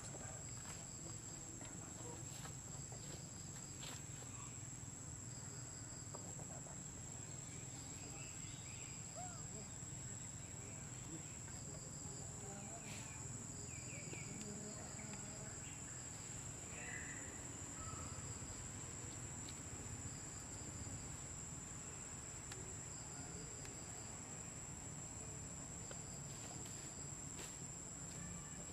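Steady high-pitched drone of insects, with a few faint short chirps scattered through the middle.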